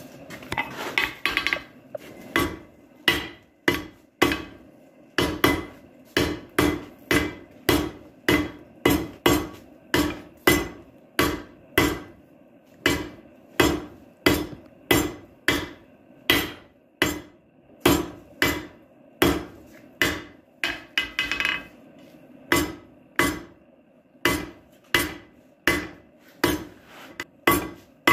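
Blacksmith's hammer striking a hot steel bar on the anvil, drawing out the stock for a coal rake: steady blows at about two a second, with a couple of brief pauses.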